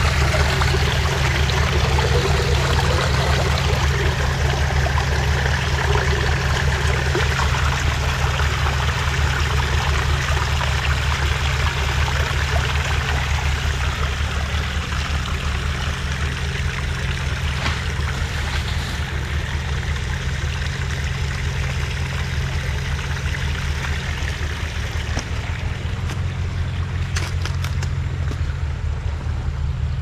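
Small mountain stream trickling over sheet rock, with a water bottle held under the falling trickle at first; the water sound eases off somewhat later on. A steady low rumble lies underneath.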